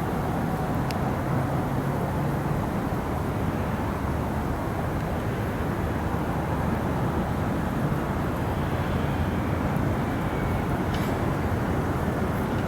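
Meitetsu electric commuter train running past, a steady rumble that holds at an even level throughout.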